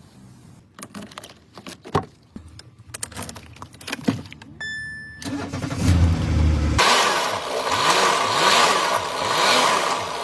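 A few clicks and a short electronic beep, then a high-mileage (about 400,000 km) car engine cranks for a moment, catches about seven seconds in, and is revved up and down several times.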